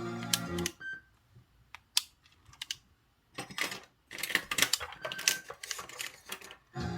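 Music cuts off, then clicks from a Sony WM-EX600 cassette Walkman's buttons and tape mechanism. After a brief silence comes a stretch of dense clicking and rattling, and the music starts again near the end.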